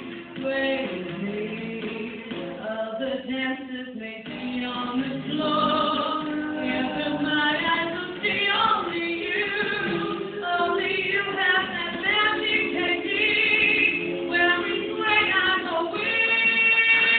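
A teenage girl singing solo into a microphone, with long held notes.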